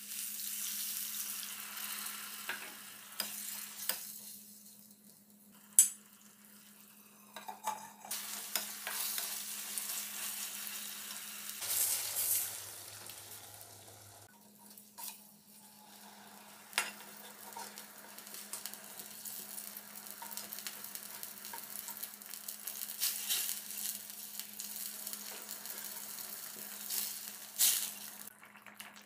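Onion-tomato masala gravy sizzling in oil in a stainless steel kadai while a metal spatula stirs it. The spatula scrapes and clacks against the pan, and one sharp clack about six seconds in is the loudest sound. A steady low hum runs underneath.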